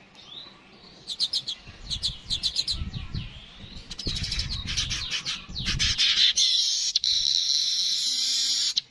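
Yellow-headed weaver (manyar) singing: quick runs of high chirps build into dense chatter, then a long buzzy, wheezing note that cuts off suddenly near the end.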